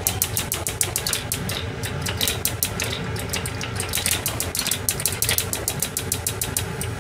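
Gas hob's spark igniter clicking rapidly and evenly, about five or six clicks a second, as the burners under two frying pans are lit; the clicking stops shortly before the end.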